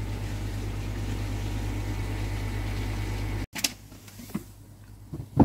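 Steady low electrical hum of pond filtration equipment running in the shed, cutting off suddenly about three and a half seconds in. After that come a few light knocks and a sharp thump near the end as a plastic box with a pipe fitting is handled.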